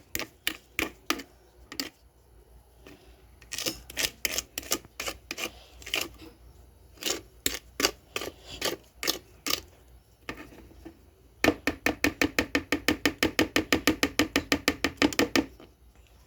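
A small spatula knocking and scraping against the sides of a mixing container to work the cake batter down: scattered irregular taps, then near the end a fast even run of taps, about seven a second, for roughly four seconds.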